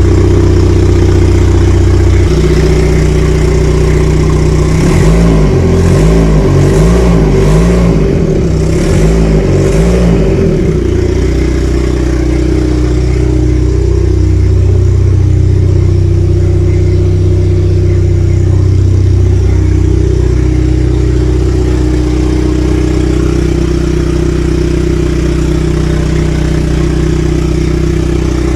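Turbocharged Honda D15Z4/D16Z6 SOHC VTEC four-cylinder running loud on its first startup, its exhaust not fully connected. About five seconds in it is revved in a quick series of throttle blips for several seconds, then settles back to a steady idle.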